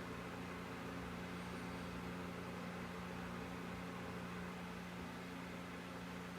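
Creality Ender 3 3D printer's cooling fans running, a steady hum and whir with an even airy hiss.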